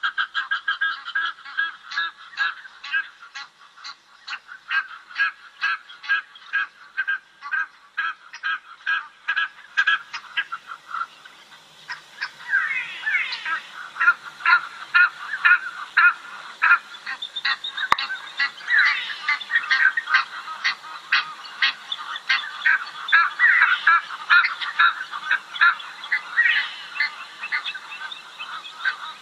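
A flock of birds calling. For about the first ten seconds a quick, even series of calls repeats about three times a second, then from about twelve seconds in many birds call over one another, louder.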